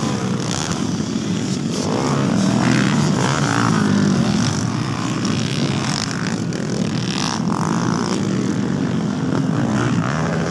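Motocross dirt bike engines running hard as the bikes race around the dirt track, the engine pitch rising and falling as the riders rev and shift.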